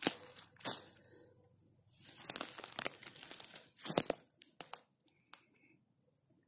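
Footsteps crunching and rustling on dry pine needles and twigs on the forest floor, a series of uneven steps that stop about five seconds in.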